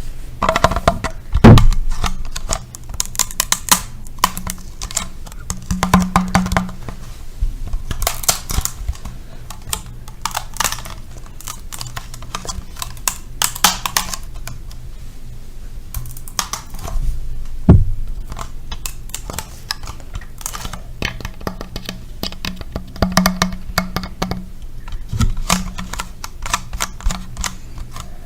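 ASMR tapping on objects: quick, irregular clusters of light taps and clicks, with a heavier knock about a second and a half in and another about eighteen seconds in, over a low steady hum.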